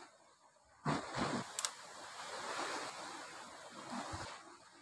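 Sea waves surging and washing over the rocks, a rushing swell that comes in about a second in and eases off near the end.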